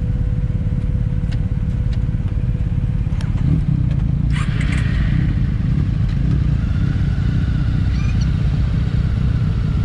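Motorcycle engines idling and running at low speed close by, including the rider's own Honda CB-1, with a brief rise in engine sound about three and a half seconds in.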